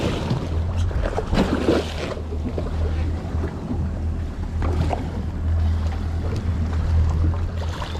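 Wind buffeting the microphone and water washing against a boat at sea, over a steady low drone.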